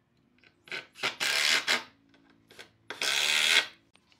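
Cordless Makita impact driver driving a screw into a pine bed rail in two short bursts, about a second in and again near the three-second mark.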